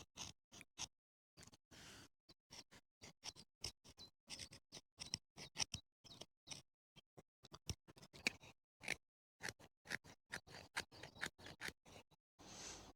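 Kitchen knife shaving and whittling a hardwood stick into a bow-drill spindle: faint, irregular short scraping strokes, a few each second.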